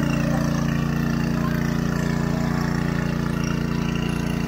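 Small engine running steadily with a low, even drone, most likely the pump drawing the water out of the pond.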